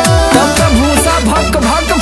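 Background music with a steady beat: drum hits and bass notes that slide down in pitch.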